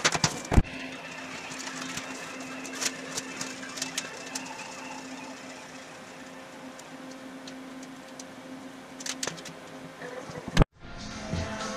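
A utility knife scoring cardboard along a metal straightedge, with a sharp click about half a second in. Then cardboard sheets rustle and tap as they are handled and fitted, with scattered clicks, over a steady low hum.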